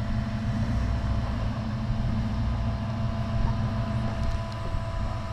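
Rock-crawling off-road vehicle's engine running steadily at low revs.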